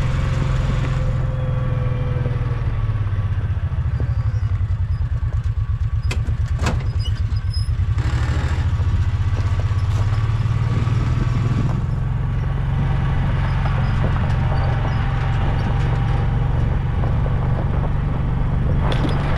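Farm utility vehicle's engine running as it is driven, a steady low rumble, with one sharp knock about a third of the way in.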